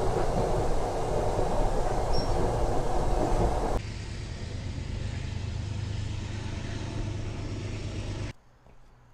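Metro-North commuter train running, a steady rumble heard from inside the passenger car. A little under four seconds in it drops suddenly to a quieter steady hum, which cuts off near the end to near silence.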